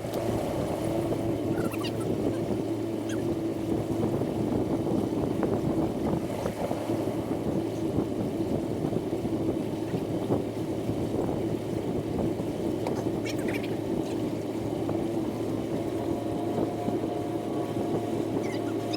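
Boat motor running at a steady speed, with a constant hum under a rushing wash of noise.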